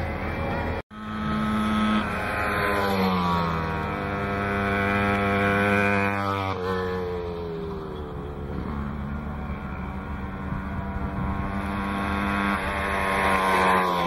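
Small two-stroke moped engines running, their pitch sliding down and up as the riders change speed. The sound briefly cuts out about a second in, and it grows louder near the end as a moped comes close.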